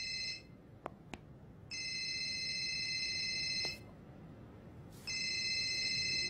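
Mobile phone ringing with an electronic ringtone: a high, steady chord of tones in bursts of about two seconds with gaps of just over a second, heard three times, the last burst cut short near the end as the call is picked up. Two faint clicks about a second in.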